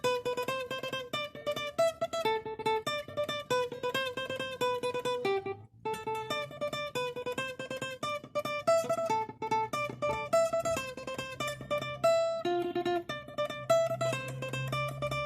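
Acoustic guitar playing an instrumental passage between sung verses: quick, evenly paced picked and strummed notes, with a brief break about six seconds in.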